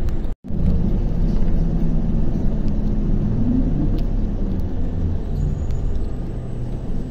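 Toei city bus under way, heard from on board: a steady engine and road rumble. The sound drops out for a moment just after the start.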